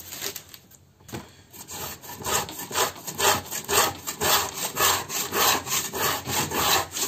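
Marking gauge cutting pins scoring teak plywood with quick back-and-forth strokes, a dry scraping rasp at about three strokes a second. It starts after a second or so of near quiet.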